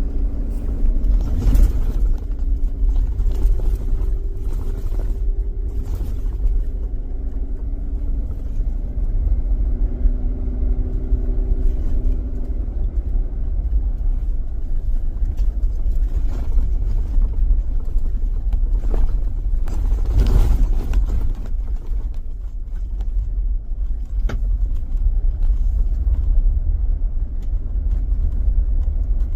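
Car driving on a back road: a steady low rumble of engine and road noise, with a few brief knocks scattered through it.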